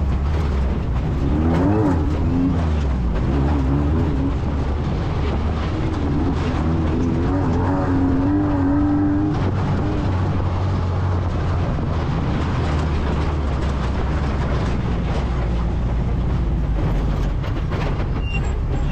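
A vehicle driving, its engine and road noise making a steady, heavy low rumble. The engine note wavers up and down through the first half and settles by about nine seconds in.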